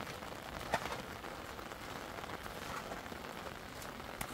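Steady rain falling on surfaces, an even hiss, with a faint click a little under a second in.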